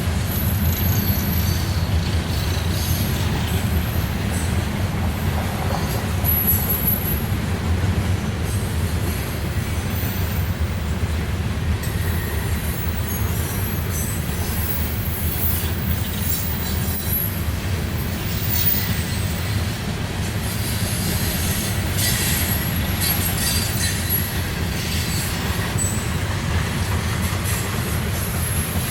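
Freight train cars rolling past: a steady low rumble of wheels on rail, with intermittent high-pitched wheel squeal.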